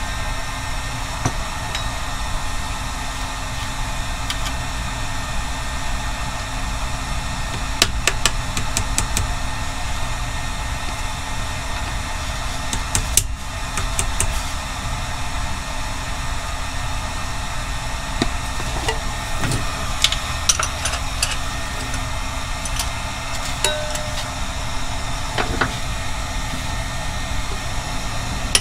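A heat tool runs with a steady rushing noise, heating the crankshaft's pilot bearing bore so it expands to take a frozen pilot bearing. A few faint clicks come and go.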